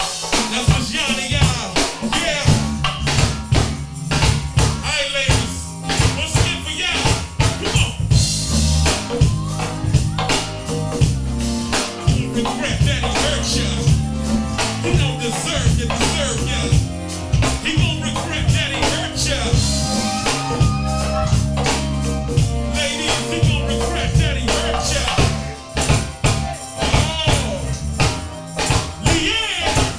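Background music with a drum kit and bass keeping a steady beat under a wavering melody line.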